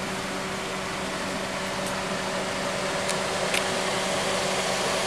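Steady mechanical hum: a constant low drone under a broad hiss, growing slightly louder about two seconds in, with a few faint clicks.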